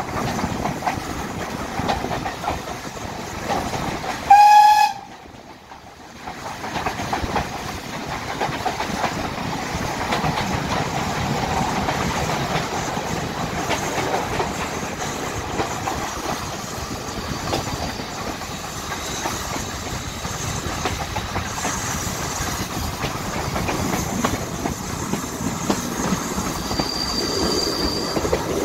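A passenger coach running along the track, heard from an open window: steady wheel and rail rumble with a clickety-clack over the rail joints. About four seconds in the locomotive gives one short, loud whistle blast. Near the end there is a brief high squeal.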